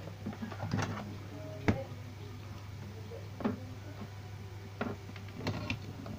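Hand tools being handled on a workbench: about six short, sharp clicks and taps as steel tweezers and a soldering iron are picked up and set against a small component, the sharpest near two seconds in. A steady low electrical hum runs underneath.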